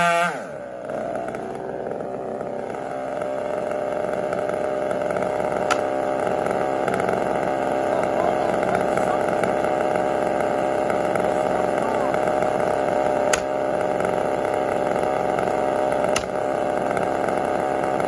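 Chainsaw idling steadily, left sitting in the felling cut, with three brief sharp clicks about 6, 13 and 16 seconds in.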